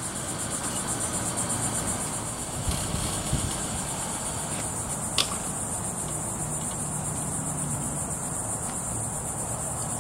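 Steady high-pitched, finely pulsing chorus of insects, over a low even background hum, with a few faint clicks.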